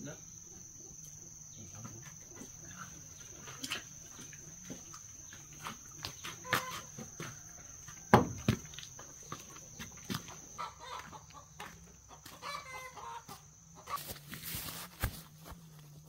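Chickens clucking over a steady high-pitched whine, with scattered knocks and one loud thump about halfway through.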